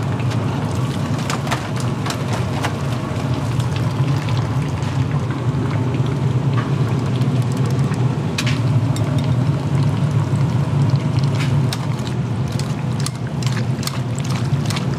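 Ramen noodles being lifted from a steaming noodle boiler and tossed in a bowl. Water splashes and metal clinks come and go over a steady low kitchen rumble.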